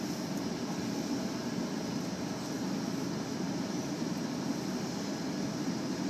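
Steady rumble of a car, heard from inside the cabin.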